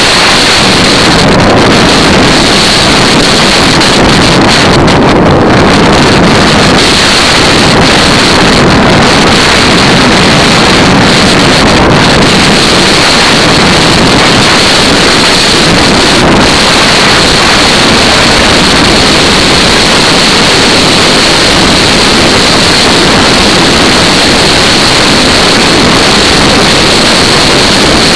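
Loud, steady wind rush buffeting the microphone of a camera riding on a racing bicycle at about 47 km/h.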